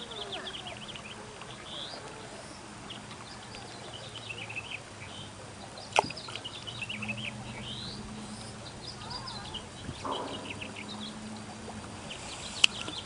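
Many small birds chirping and twittering, with two sharp clicks, about six seconds in and near the end, the second the loudest.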